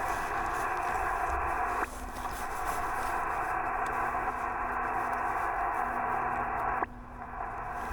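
Yaesu FT-891 HF transceiver in SSB receive, its speaker giving a steady hiss of band noise cut off sharply above and below by the receiver's voice filter, with a faint steady low tone in it. Twice, about two seconds in and near the end, the hiss drops suddenly and then creeps back up, like the receiver's automatic gain control pulling back and recovering.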